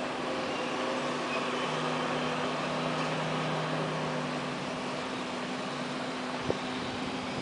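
Beechcraft 1900D's twin PT6A turboprop engines running steadily, a distant drone with a few held tones, plus a short click about six and a half seconds in.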